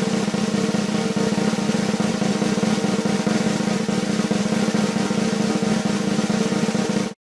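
Snare drum roll sound effect: a fast, even roll held for about seven seconds, cutting off abruptly just before the end.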